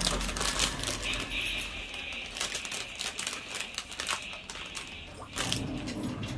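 Clear plastic jewellery packet crinkling and rustling as it is handled, a run of small irregular crackles.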